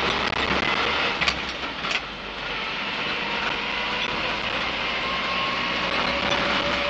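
Inside the cab of a Land Rover Series 3 109 breakdown truck, the engine pulls steadily on the move with no misfiring or hesitancy. A few clunks come between one and two seconds in, and the sound dips briefly just after, then settles to a steady run.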